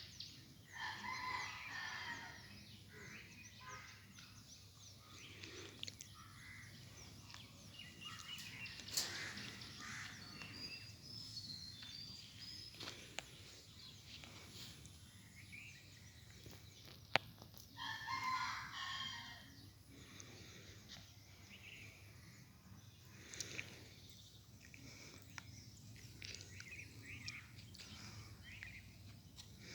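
Faint rooster crowing, one long crow about a second in and another past the middle, with small high bird chirps between.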